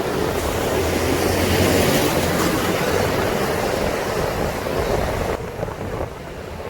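Wind rushing over the microphone and traffic noise while riding on the back of a motorcycle taxi. The high hiss drops off suddenly about five and a half seconds in.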